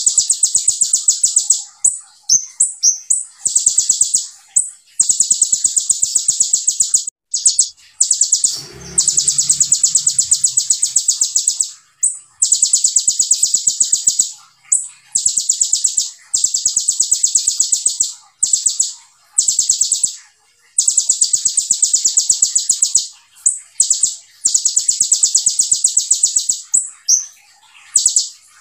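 Caged kolibri ninja sunbird singing rapid, dense high-pitched trills, the 'tembakan' bursts prized by Indonesian bird keepers, each burst lasting two to three seconds and repeated after short pauses, with brief chirps in between.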